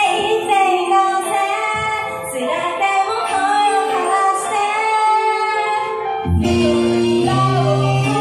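Idol-pop song with a female lead vocal. The singing runs over light backing at first, and the full backing track with heavy bass comes in suddenly about six seconds in.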